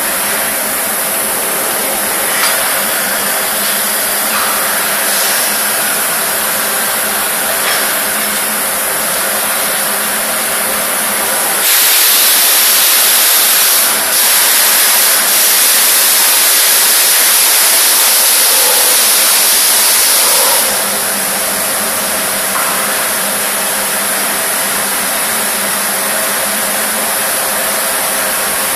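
Steady machinery drone of a Colosio aluminium die-casting machine, with several steady hum tones. Partway through, a loud hiss starts suddenly, runs about nine seconds with one short break, and stops sharply.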